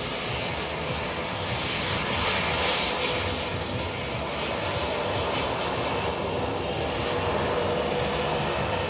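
Jet airliner engines running: a steady rushing noise with a faint whine, holding even in level.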